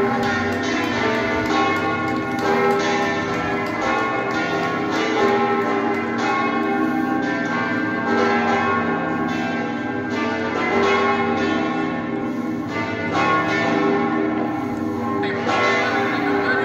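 Church bells ringing continuously, with many strikes overlapping in a steady peal.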